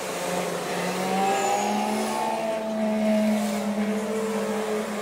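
An engine running steadily, its pitch shifting slightly up and down.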